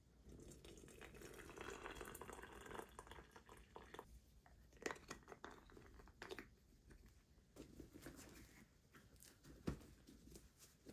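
Faint sounds of a hot water bottle being filled from an electric kettle: water pouring for a few seconds. Then scattered knocks and rustling as the bottle is handled and pushed into a fleecy plush cover.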